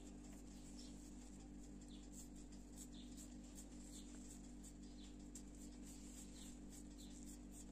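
Very faint soft ticks, a few a second, of raw minced meat being pressed and patted into a hamburger patty between the hands, over a low steady hum.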